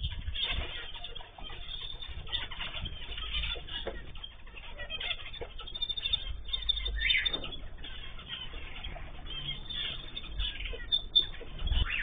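Small aviary birds, canaries and zebra finches, chirping and calling in short bursts, with wings fluttering and small thuds as they fly and land. The sound is thin and dull, heard through a security camera's microphone.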